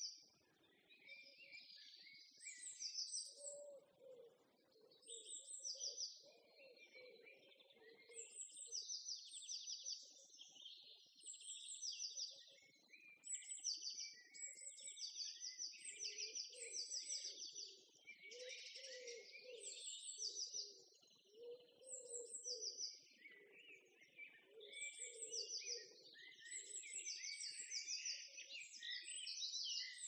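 Small songbirds chirping and singing throughout, mostly quick runs of short, high repeated notes, with a fainter, lower sound coming and going underneath.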